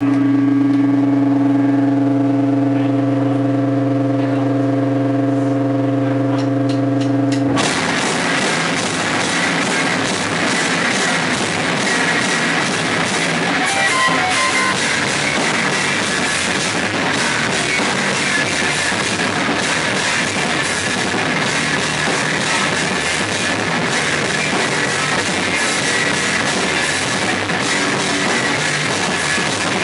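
Live amplified rock band: a single held note rings steadily for about seven and a half seconds, then electric guitar, bass guitar and drum kit come in together suddenly and play loud, driving rock.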